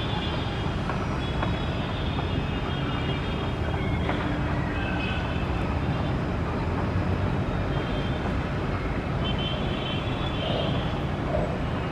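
Steady, even rumble of a Boeing 787-8's jet engines running as the airliner moves along the runway.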